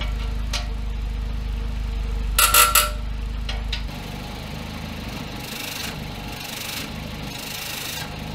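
Volvo 945 engine idling through a freshly fitted stainless exhaust, heard at the rear silencer, with a short loud rattling burst about two and a half seconds in. The exhaust has a few leaks at its joints, which were fitted without exhaust paste.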